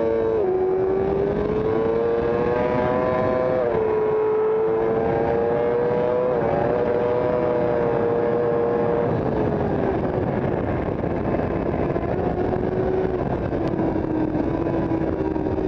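Sport motorcycle engine at high revs heard from on the bike, its pitch climbing steadily and dropping sharply at each upshift, about three times, then settling lower as the throttle eases about nine seconds in. Heavy wind rush over the fairing runs throughout and takes over once the engine backs off.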